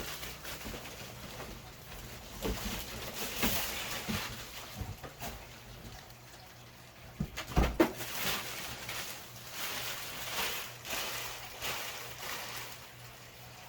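Packing material being handled and pulled from a box: rustling and scraping foam and plastic, with a few knocks, the loudest about seven and a half seconds in.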